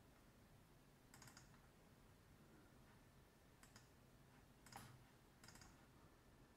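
Near silence with four faint clicks from a computer mouse and keyboard, spread over several seconds, the one near the end loudest.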